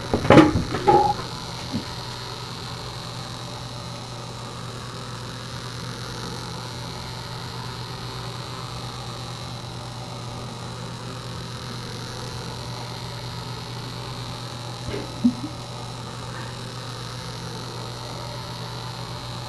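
A steady low electric hum with no break, with a short louder burst of knocking and squeaking in the first second and a fainter one about fifteen seconds in.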